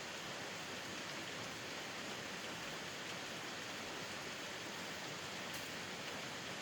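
Steady rain falling: an even hiss, with a faint drop tick about five and a half seconds in.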